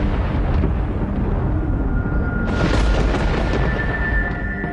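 Dramatic documentary score over a deep storm rumble, with a surge like a thunder crash about two and a half seconds in. High held notes enter about two seconds in, and the sound eases off near the end.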